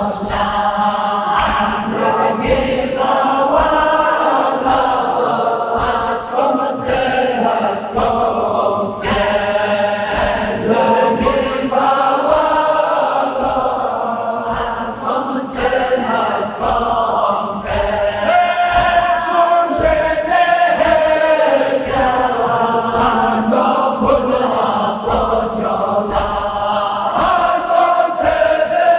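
Male voices chanting a Balti noha, a Shia mourning lament, with a lead reciter amplified through a microphone and the congregation singing along. A steady beat of low thumps runs under the chant.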